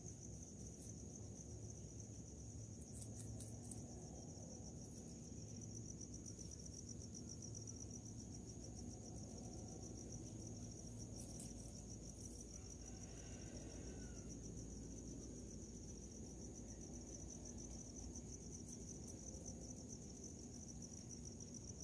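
Crickets chirping in a steady, high-pitched trill, faint under a low background rumble.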